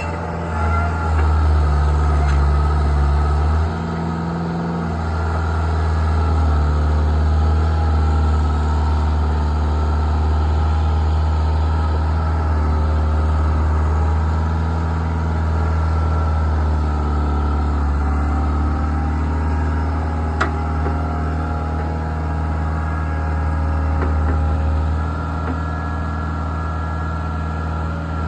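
Skid steer engine running steadily, its speed shifting a few times: up about a second in, down near four seconds, and again near the end.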